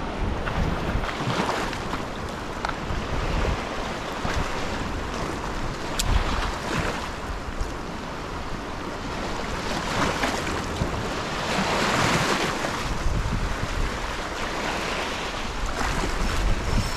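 Sea waves washing on the shore with wind buffeting the microphone, the wash swelling louder about two thirds of the way through and easing off again.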